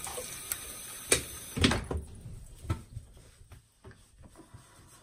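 Water running from a sink tap while the face is rinsed after a shave; the running water stops about two seconds in. A few knocks come just before it stops, the loudest about a second and a half in, followed by faint clicks and rustles.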